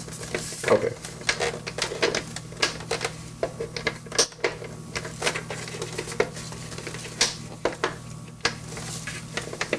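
Hard plastic shell of a Power Rangers Legacy Red Ranger helmet giving many irregular clicks and knocks as it is pressed and worked down onto a head, over a steady low hum.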